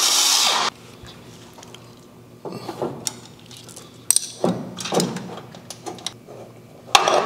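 A handheld air tool on a shop air hose runs for under a second while driving mounting bolts, then cuts off. Short spells of clicking and metal-on-metal taps follow as the bolts are snugged by hand with a wrench, with a brief loud burst near the end.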